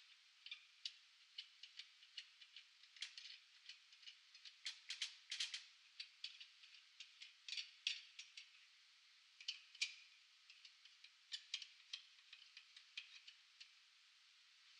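Faint, irregular metallic clicks and knocks as a coil-spring strut is set in a hydraulic spring compressor and its jaws and adjusters are handled, with a quick run of clicks about five seconds in.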